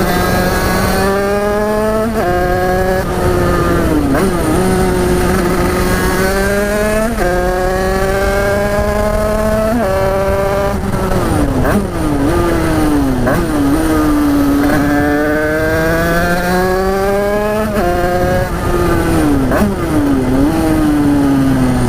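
Big-bore two-stroke Derbi 50cc-class motorcycle engine under hard acceleration. The pitch climbs through each gear and drops at every upshift, over and over. Around the middle it falls away as the bike slows, then it climbs through the gears again.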